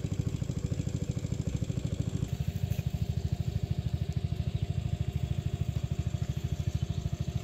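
A small engine running steadily, with a rapid, even chugging beat.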